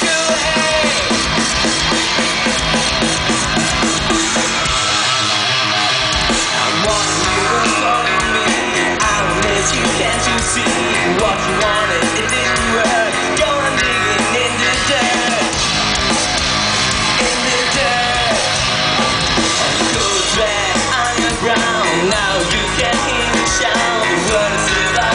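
Rock band playing live through a large outdoor PA, with electric guitars and a drum kit, heard from among the audience.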